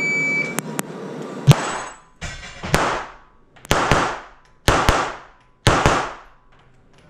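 A shot timer's start beep, then a Tanfoglio Stock III Extreme 9mm pistol firing about six shots at a slow pace, roughly one a second, each crack echoing in a small indoor range. The loudest crack comes about a second and a half in.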